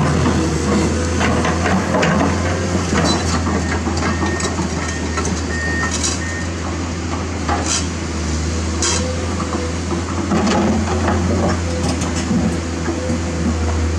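Komatsu PC210-10 excavator's diesel engine running with a steady low drone, while its steel bucket scrapes and knocks against river boulders and loose stones clatter in scattered sharp clanks.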